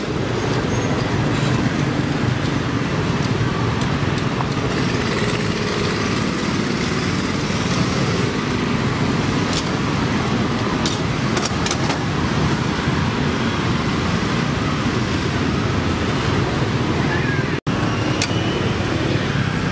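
Street traffic noise: motorbikes and cars running past steadily, with a few light clicks and knocks. It breaks off for an instant near the end.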